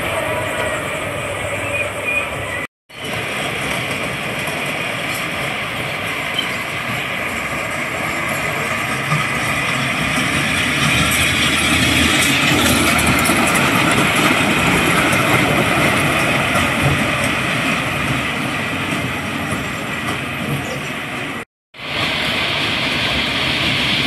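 Wacky Worm kiddie roller coaster train running along its steel track, a steady rolling rumble and clatter that grows louder for several seconds in the middle as the train passes close by. The sound cuts out abruptly for a moment twice, near the start and near the end.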